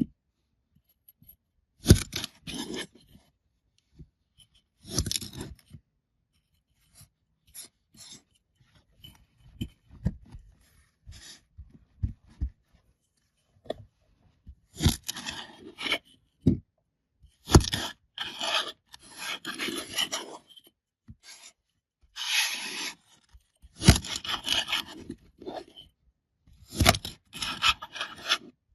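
Kinetic sand packaging being handled and opened by hand: irregular bouts of scraping and rubbing with short quiet gaps between, busier in the second half.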